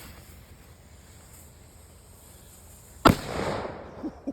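A lit firecracker's fuse hissing faintly with a thin high tone, then the firecracker going off in a single sharp bang about three seconds in, with a brief crackling tail.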